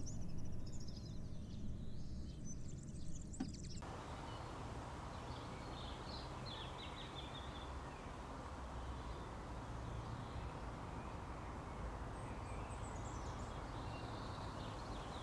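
Outdoor ambience: birds chirping now and then over a steady low rumble, with the background hiss changing about four seconds in.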